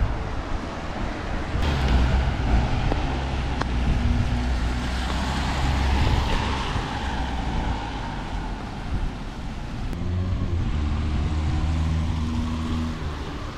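An engine running with a low, steady drone that swells twice, under a haze of wind-like noise.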